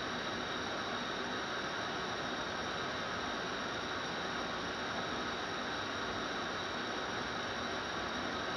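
Steady hiss and rush of a pot of water heating on a gas stove burner, the water at about 87 °C and not yet boiling.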